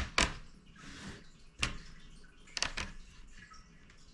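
Laptop base cover being pried open along its seam with a pry tool: several sharp clicks and a brief scrape about a second in.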